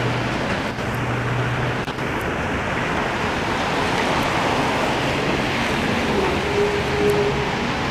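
Airbus A330 jetliner on landing approach overhead: a steady rushing engine noise that swells slightly through the middle.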